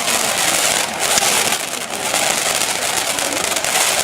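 Fireworks burning close by, with a dense, continuous crackling hiss made of many fine pops throughout.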